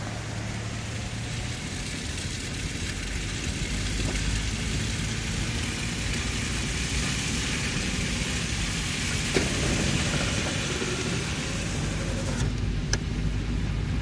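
Car interior noise while driving on a slushy, snow-covered road: the engine running with tyre and road noise, growing louder about four seconds in as the car gets moving. A couple of short sharp clicks sound near the middle and near the end.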